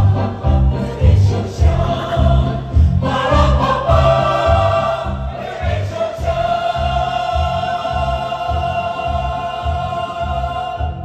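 Choir singing a lively Taiwanese Hokkien song over a backing track with a steady low beat, then holding one long note from about halfway through.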